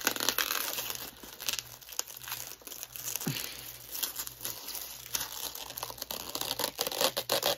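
Packaging crinkling and rustling as it is handled, in irregular bursts.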